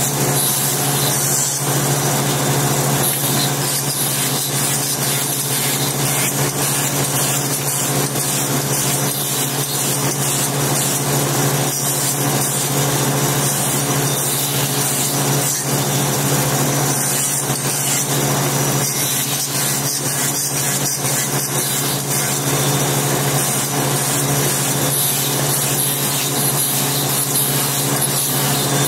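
Small bench-mounted circular saw running with a steady hum while slate strips are fed through the blade and cut into slate pencils, with a continuous hiss of stone being cut.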